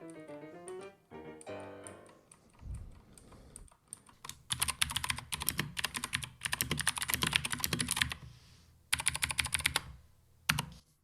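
Typing on a Keychron K2 mechanical keyboard with Gateron Blue clicky switches: fast runs of sharp clicks, one long run of several seconds and a shorter one after a brief pause. Faint background music plays at the start.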